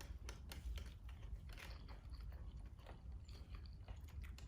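Close-up chewing and biting of chicken nuggets: faint, irregular soft crunches and mouth clicks over a low steady hum.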